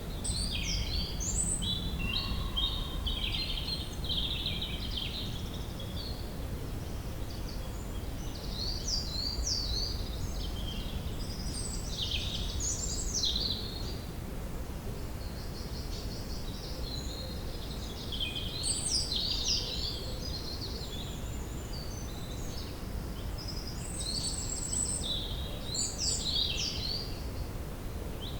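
Woodland ambience: songbirds singing in bursts of rapid chirping phrases, several seconds at a time with short pauses between, over a steady low background rumble.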